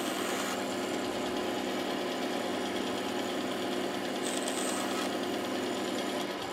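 Bandsaw running with a steady hum, its motor and blade turning. A brief faint high whine comes about four seconds in, and the hum weakens just before the end.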